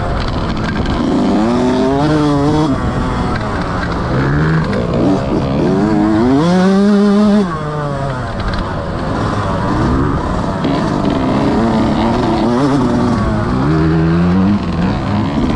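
Motocross bike engine loud under riding, the revs rising and falling again and again as the throttle is worked. About halfway through it holds one long high rev that drops off suddenly.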